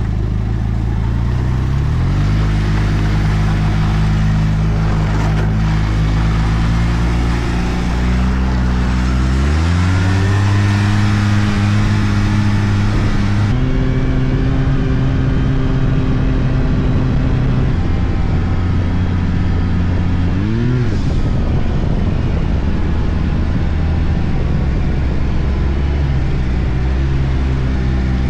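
Arctic Cat turbo snowmobile engine running steadily under way. Its pitch climbs twice, about two and ten seconds in, and it revs up and back down briefly about two-thirds of the way through.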